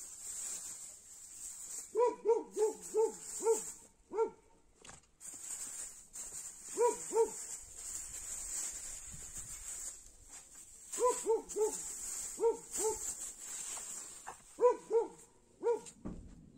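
An animal's short pitched calls, each falling away at the end, repeated about three a second in bouts of two to six. Under them runs a steady high-pitched hiss.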